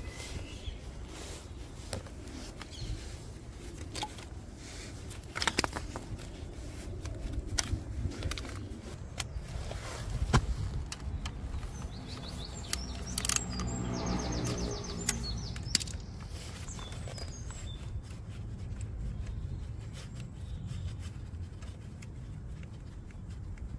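Hand-tool work on a motorcycle: scattered metal clicks and knocks, with a socket ratchet clicking in a quick even run for a few seconds about halfway through.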